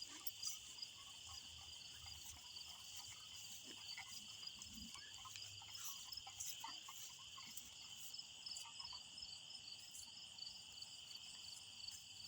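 Night insect chorus, crickets or katydids: a steady high-pitched trill with a second call pulsing over it about four times a second.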